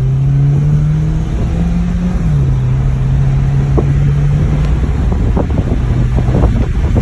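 Car engine accelerating, its pitch climbing and then dropping at an upshift about two seconds in, then pulling steadily on with road and wind noise.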